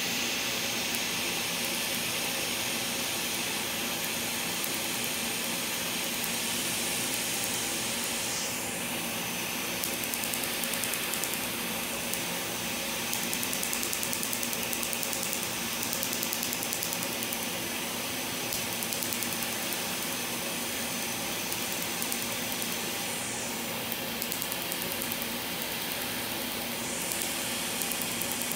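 Q-switched tattoo-removal laser firing: runs of fast, evenly spaced clicking pulses, many a second, as the handpiece is passed over the tattoo, over a steady hiss.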